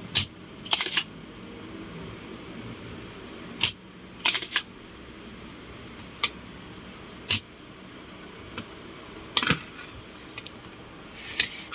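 Sharp clicks and short metallic clinks of small hand tools and parts being handled on a workbench, about eight of them at irregular intervals, some single and some in quick little clusters.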